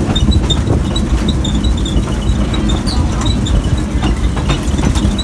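Passenger train car running along the track, heard from on board: a steady low rumble with light clicks and faint high squeaks from the wheels and car.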